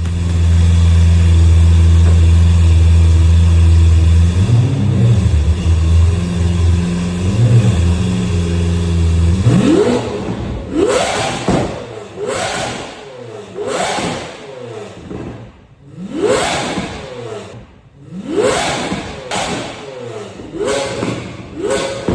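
A pickup truck engine running at a steady speed, then revved in a string of quick blips, roughly one every one to two seconds, through the second half.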